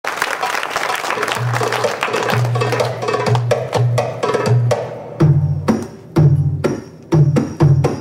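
Drum solo music for belly dance: a fast, dense run of drum strokes for about five seconds, then heavy deep strokes spaced apart with short pauses between them.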